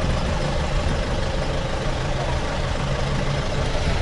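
A taxi's engine running with steady road noise and a low hum, heard while riding in the taxi.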